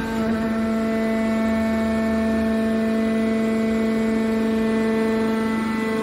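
Hydraulic power unit of a scrap steel wire baler running: the electric motor and hydraulic pump give a steady, even-pitched hum.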